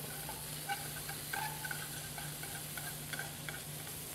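Chopped bacon sizzling in a stainless steel skillet on a portable butane burner, stirred with metal tongs that give small scattered ticks and scrapes against the pan, over a low steady hum. The bacon is still rendering its water and fat, a few minutes short of browning.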